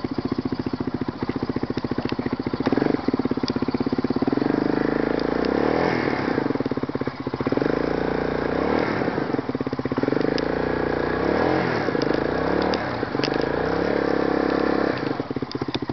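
ATV engine running as it is ridden, steady at first, then its pitch rising and falling over and over as the throttle is opened and eased from about five seconds in.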